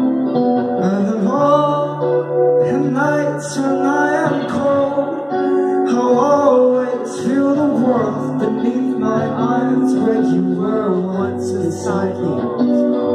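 A live band playing a song: a male voice singing over electric guitar and bass, heard from among the audience.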